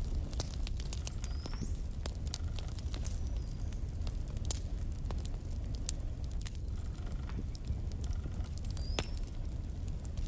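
Wood fire burning in a fireplace, crackling with irregular sharp pops over a low steady rumble of the flames. A couple of brief high-pitched squeaks come through, one about a second in and one near the end.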